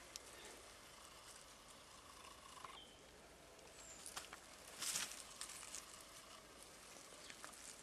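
Quiet rainforest ambience: a faint steady hiss with a couple of short high chirps, and one brief rustle about five seconds in.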